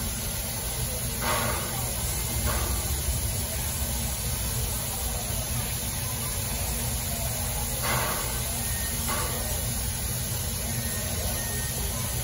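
Steam locomotive standing at rest, hissing steadily over a low rumble. Short louder hisses come in two pairs, each about a second apart, one pair just after the start and another about eight seconds in.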